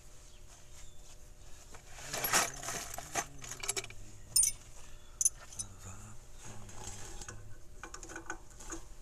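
Metal hand tools clinking and rattling while being sorted through, with a cluster of rattles about two seconds in and a few sharp metallic ticks after.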